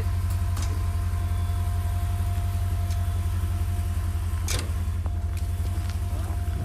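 Steady low rumble of an idling car engine, with a faint steady tone running behind it and a single sharp click about four and a half seconds in.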